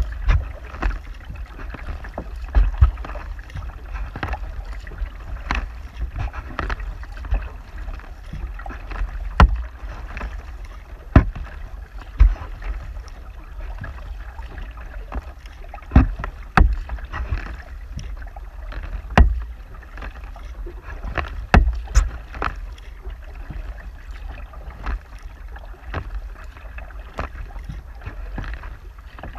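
Kayak being paddled on calm water: paddle strokes dipping and splashing, with irregular sharp knocks and splashes against the plastic hull every second or two. A steady low rumble of wind on the microphone runs underneath.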